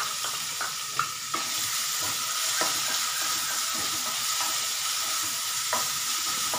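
Finely chopped onion sizzling steadily in hot oil in a kadhai as it goes in and is stirred with a wooden spatula, which scrapes and taps the pan now and then.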